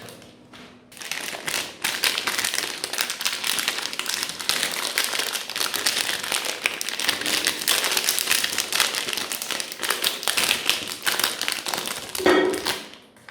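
Meat grinder crunching through frozen ice cream: a dense, irregular crackling of many small clicks, easing off briefly near the end.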